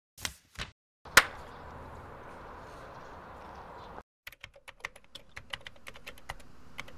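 A sharp click about a second in, then a steady hiss that cuts off suddenly about four seconds in, followed by fast, irregular clicking of typing on a computer keyboard.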